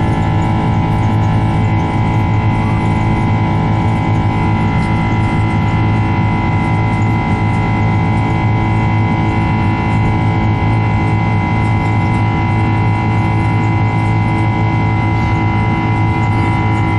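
Boeing 767 turbofan engine heard from inside the cabin by the wing, running at takeoff power in the climb just after liftoff. It is a loud, steady noise carrying several steady tones.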